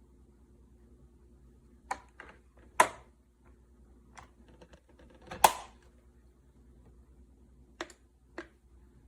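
Sharp clicks and knocks from a single-serve coffee maker being handled, some seven in all. The two loudest come about three and five and a half seconds in, and two lighter clicks come near the end, over a faint steady hum.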